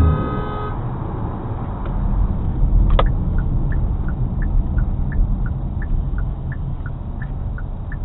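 A car horn sounding steadily, cutting off under a second in; then engine and road noise from inside a moving car, with a click about three seconds in followed by even ticking, about three ticks a second, alternating between two pitches.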